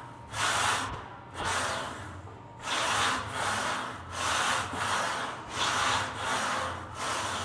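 A man breathing hard in and out while pressing a loaded bar through repeated bench-press reps, one rough breath about every second. This is the breathing of heavy exertion under load.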